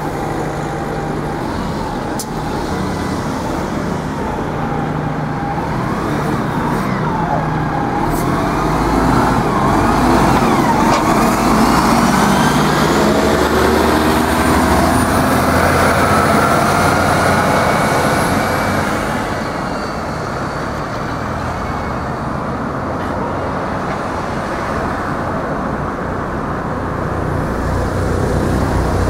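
Single-deck diesel bus pulling away and accelerating past, its engine note sweeping up and down in pitch and loudest about a third to halfway in, then easing off into steady road traffic noise.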